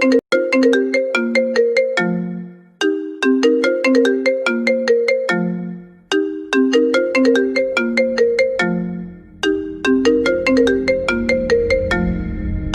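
iPhone ringtone playing: a short melody of bright, struck notes repeated four times, about every three seconds. Near the end a deep bass rumble begins to swell in beneath it as the bass boost kicks in.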